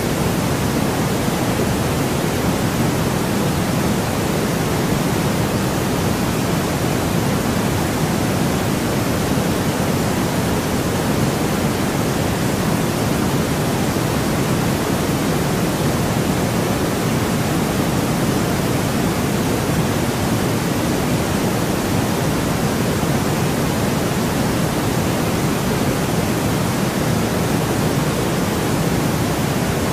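Steady, unchanging white noise: an even hiss with no events, fuller in the low and middle range than in the highs.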